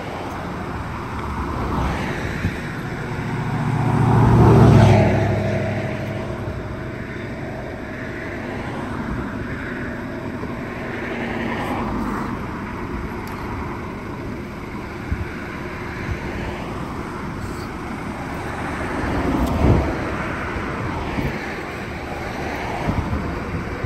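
Road traffic passing: a steady wash of car noise, with one vehicle swelling loud as it goes by about four to five seconds in, and another, shorter pass just before twenty seconds.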